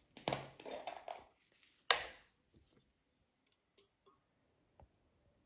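A small plastic bottle being handled: its screw cap is twisted off with a run of rustles and clicks, a sharp tap about two seconds in as the cap is set down on the table, then a few faint clicks as the bottle is tipped to pour.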